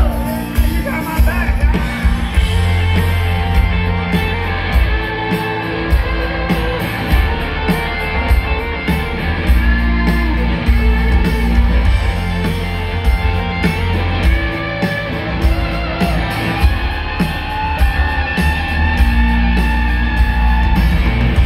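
Live country-rock band playing loud through a concert PA, electric guitars to the fore over a steady bass and drum beat, heard from among the audience.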